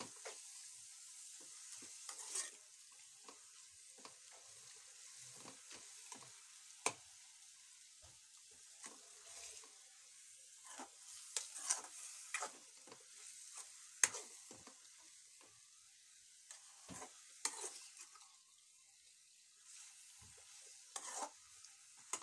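Keema frying with onions in a steel kadai, sizzling faintly while a steel ladle stirs and mixes it. The ladle scrapes and clinks against the pan now and then, sharpest about 7 and 14 seconds in.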